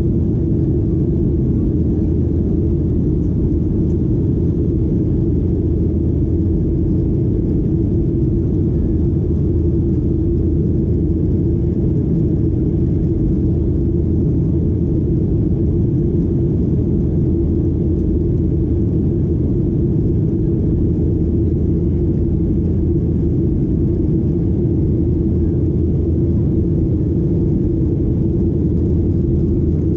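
Cabin noise inside a Boeing 737-800: the steady low drone of its CFM56 engines and airflow, unchanging throughout.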